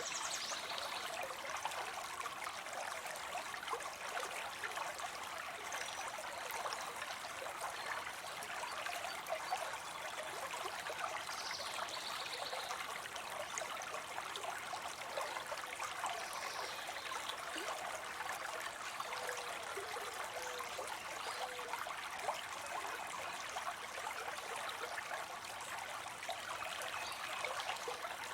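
Water spilling into a pond: a steady trickling splash of falling water, full of small drips and splashes.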